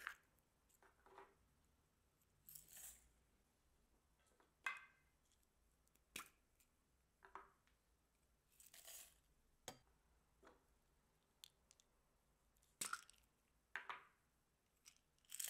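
Faint, scattered handling sounds: about a dozen short clicks and brief rustles as small plastic capsule cups are opened and sequins, glitter and plastic beads are poured out of them onto slime in a glass dish.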